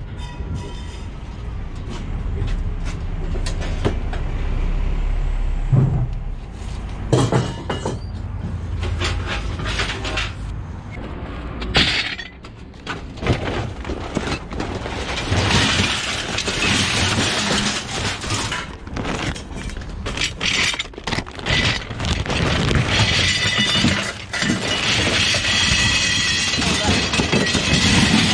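Aluminium scrap clattering as it is thrown or tipped onto a pile: a long, dense run of sharp metallic clanks and crashes, thickest in the second half, with a low rumble under the first few seconds.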